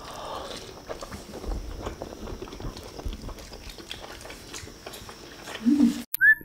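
Close-miked eating sounds: chewing, wet lip smacking and fingers picking at chicken and rice, many small irregular clicks with soft thumps. Near the end a short whistle-like tone comes in.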